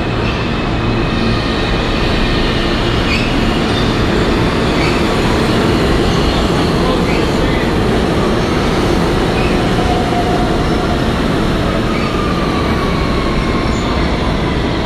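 R160 Siemens subway train pulling into the station, with steady wheel-on-rail noise and a few brief wheel squeals. Near the end its traction motors give a whine that falls in pitch as the train slows to a stop.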